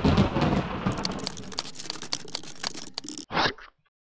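Sound effects: a deep boom, then a rapid run of sharp clicks and crackles, ending in a short burst of hiss a little after three seconds before cutting off suddenly.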